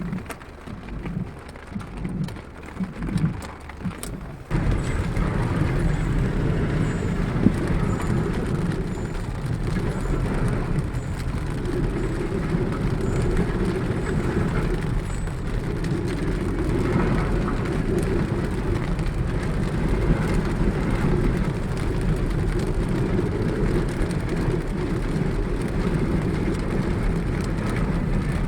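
Steady, loud noise of a heavy rainstorm, starting abruptly about four and a half seconds in after a stretch of uneven low rumbling bumps.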